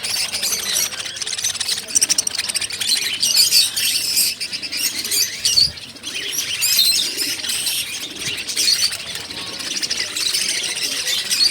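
Many small caged birds chirping and twittering at once, a continuous dense chorus of high calls.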